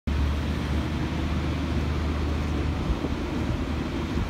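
Mobile crane's engine running with a steady low rumble while it lifts a heavy load.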